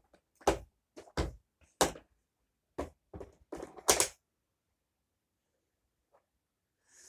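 A run of about seven sharp knocks and clicks over four seconds as the Shark vacuum cleaner is handled, then quiet.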